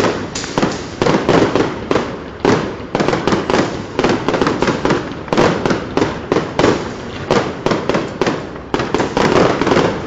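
Fireworks display in full swing: a rapid, unbroken run of sharp bangs and cracks from bursting aerial shells, several a second, each trailing a short echo.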